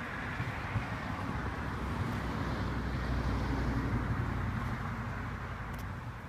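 Low rumble of a passing vehicle, swelling through the middle and fading near the end.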